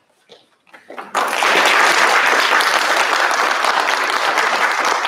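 Audience of schoolchildren applauding, many hands clapping; the clapping breaks out suddenly about a second in after a short pause and carries on steadily.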